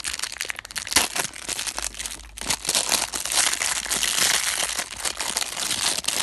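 Crinkly plastic wrapper of an L.O.L. Surprise doll being crumpled and pulled open by hand: continuous crackling with sharp snaps, the loudest about a second in.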